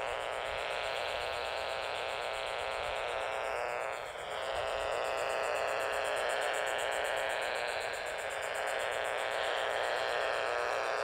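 Power-line RF interference picked up by a portable AM transistor radio and heard through its small speaker as a steady buzzing static, pretty strong near a utility pole.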